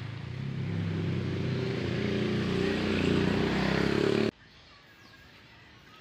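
A motorcycle engine running close by, getting louder as it approaches, then cut off abruptly about four seconds in, leaving quiet outdoor background.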